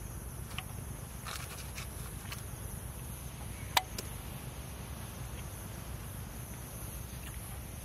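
Steady high chirring of night insects, with scattered small crackles from a wood fire and one sharp click just under four seconds in.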